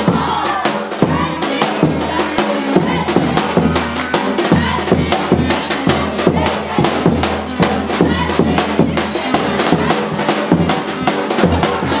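Music with a steady, fast drum beat over a sustained bass line and melody.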